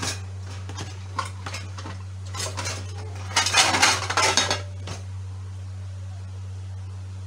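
Metal utensil clinking and scraping against a steel plate while pieces of dried mango leather are cut and moved about: scattered clicks at first, then a dense flurry of clatter about three and a half to four and a half seconds in.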